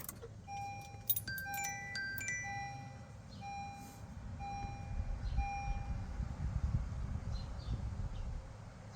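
Electronic beeping: a steady mid-pitched beep repeated about once a second, six or seven times, stopping about six seconds in. A few quicker, higher beeps and clicks come near the start, and a low rumble builds near the end.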